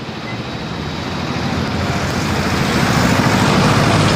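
A road vehicle passing close by, its engine and tyre noise growing steadily louder.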